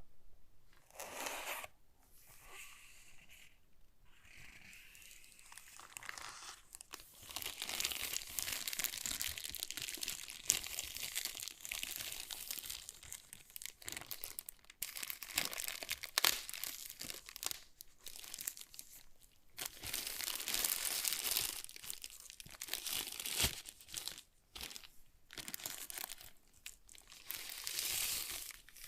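Keyboard packaging being unwrapped and handled: crinkling, crackling and tearing. It is sparse for the first few seconds, then comes in dense stretches with brief pauses.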